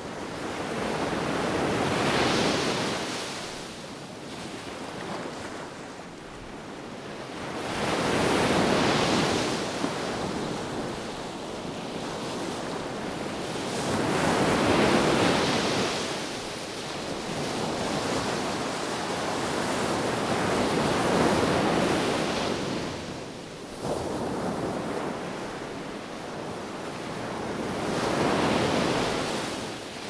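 Sea waves breaking and washing up a sandy beach, each surge of surf swelling and fading about every six seconds.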